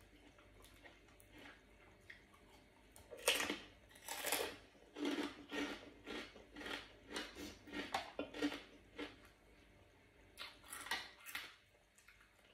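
Close-miked eating sounds: a run of chewing and mouth noises, about two a second, starting about three seconds in, pausing briefly, then a few more near the end.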